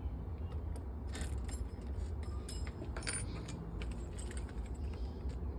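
Keys jangling and clicking in and against a Kwikset SmartKey lock cylinder while it is rekeyed to a new key, a series of irregular light metallic clinks. A steady low hum runs underneath.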